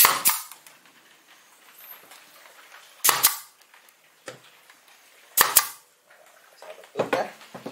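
A pneumatic nail gun fires nails into a pine pallet-wood block: four sharp shots, about two seconds apart.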